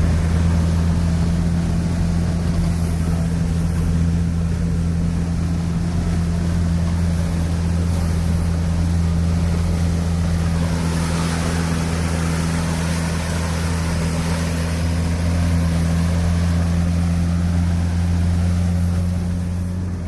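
Engine of a Veter all-terrain vehicle running steadily at a constant pitch, without revving.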